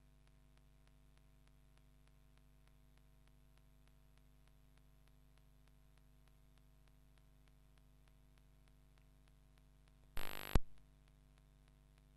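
Near silence: faint steady hum and hiss with a light regular ticking, broken about ten seconds in by one sudden loud burst of noise lasting under half a second.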